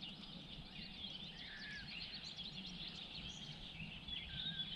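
Many small birds chirping and singing at once in a morning chorus of quick, high, overlapping calls, over a faint low hum.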